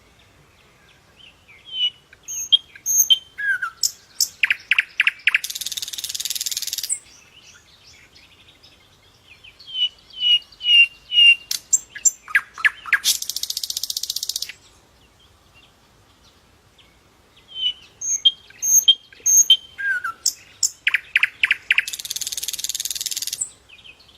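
A songbird singing the same song three times, about eight seconds apart: each song is a string of clear, high whistled notes and quick chips that ends in a loud buzzy trill.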